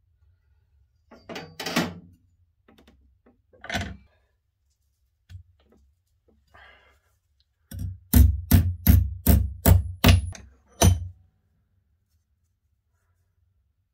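A hammer striking a metal strip clamped in a bench vise: about eight sharp blows in quick succession, roughly three a second, starting about eight seconds in, with a faint metallic ring. Before them come a few scattered knocks as the strip is handled in the vise.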